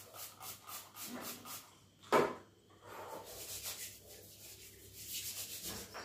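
Hands rubbing and fiddling with a small object in short repeated rasping strokes, with one louder knock about two seconds in.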